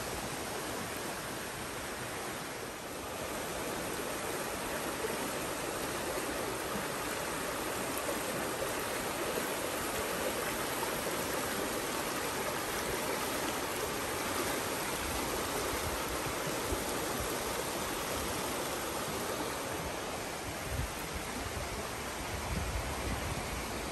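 Steady rush of a fast, rain-swollen forest creek running over rocks. A few low bumps come in the second half.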